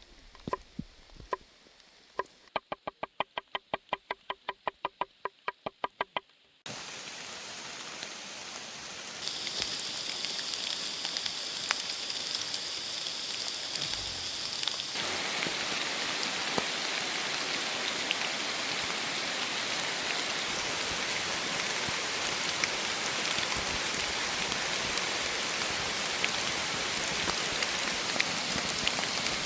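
Steady rain falling, starting abruptly about seven seconds in and growing heavier around fifteen seconds. Before it come a few seconds of fast, even tapping at about eight taps a second.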